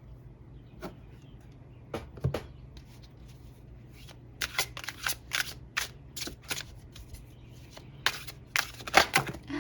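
Tarot cards being shuffled and handled: a few separate card snaps, then two dense runs of quick sharp card clicks and flicks about four and eight seconds in.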